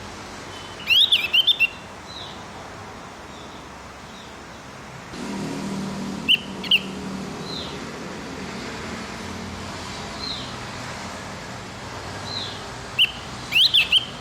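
Javan grey-throated white-eye (opior jawa / cucak gentong) singing: three loud bursts of quick, twittering chirps, about a second in, midway and near the end. Between the bursts come fainter short falling whistles, over a steady background hiss.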